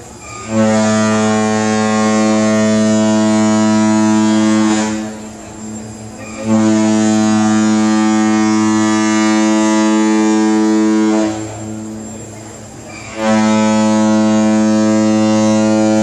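Cruise ship's horn sounding three long, deep blasts of about four to five seconds each, with short gaps between. Each blast is one steady tone, rich in overtones, and the third is still sounding at the end.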